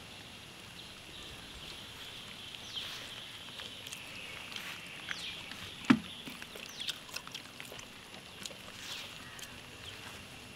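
Rural outdoor ambience: a steady high drone with scattered short, falling bird chirps, and one sharp click about six seconds in.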